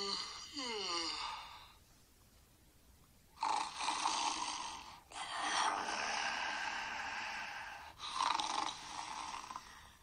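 A person's voice gliding downward twice, then, after a short pause, a few seconds of snoring in three long noisy breaths.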